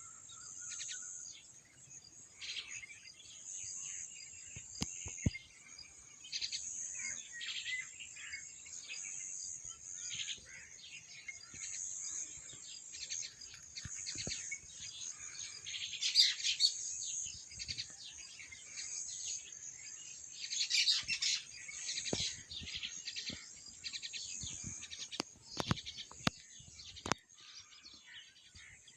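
Many songbirds chirping and singing in quick, overlapping calls, with louder flurries about halfway through and again a few seconds later.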